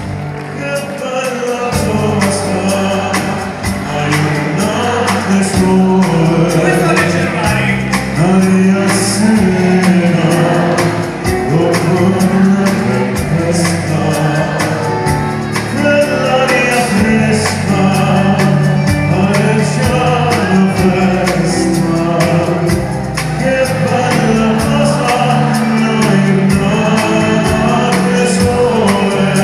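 Live amplified concert music: a singer with an orchestra and band, with a steady beat, heard loud from among the audience.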